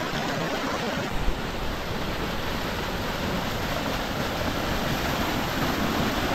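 Rain-swollen hillside stream rushing steadily over rocks in whitewater, with a brief low thump about a second in.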